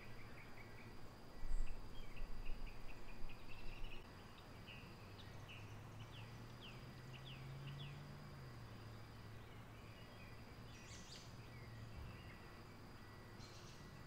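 Faint outdoor ambience of small birds chirping: a quick run of short chirps and falling calls in the first few seconds, over a thin steady high tone and a low hum, with a couple of soft rustles later.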